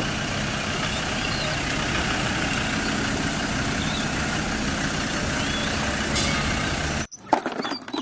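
Steady mechanical noise, an even rushing hiss over a low hum, which cuts off abruptly about seven seconds in.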